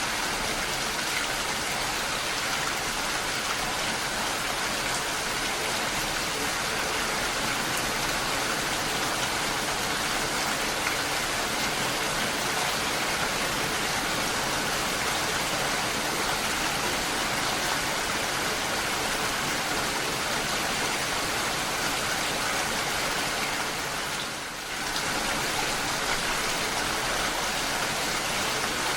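Steady rain falling as an even, continuous hiss, dipping briefly once near the end.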